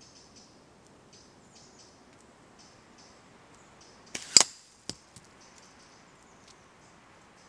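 Slingshot shot at a target: a lighter snap, then a sharp crack about four seconds in as the projectile strikes the target and knocks it off its stick, followed by two smaller knocks. Faint bird chirps throughout.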